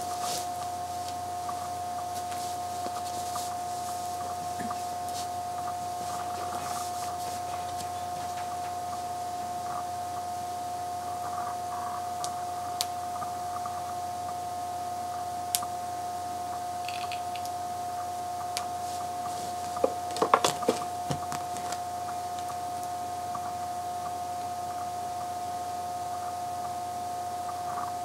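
Hands handling a doll's clothing on a bed: soft rustling of fabric with scattered light clicks and a quick cluster of sharper clicks about twenty seconds in, over a steady electrical hum.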